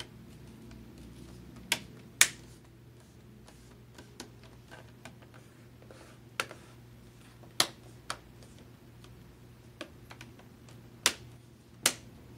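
Plastic screen bezel of a Lenovo ThinkPad T420 being pressed onto the lid, its retaining clips snapping into place with sharp clicks: about eight snaps, spaced a second or more apart, the loudest about two seconds in.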